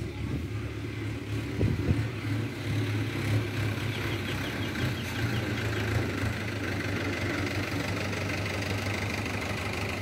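An engine running steadily at a low, even pitch, with a couple of sharp knocks about two seconds in.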